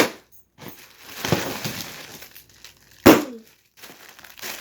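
Bubble wrap being popped by hand: a sharp pop right at the start and a louder one about three seconds in, with plastic crinkling between.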